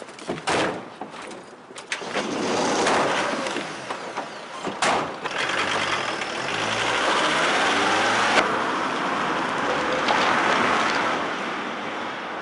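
Police van's engine running as the van pulls away and drives past, growing louder to a peak in the middle and easing slightly near the end. A few sharp knocks come in the first couple of seconds.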